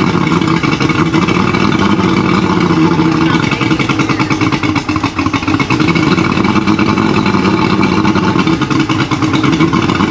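Yamaha two-stroke outboard motor running steadily on flush muffs out of the water. It has just started after sitting for 18 years.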